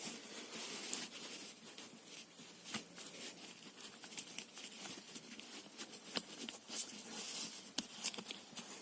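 Faint scattered clicks and rustling as a seatbelt tongue is worked into the small release slot of a rear centre seatbelt's detachable anchor, plastic and metal parts clicking and belt webbing rubbing.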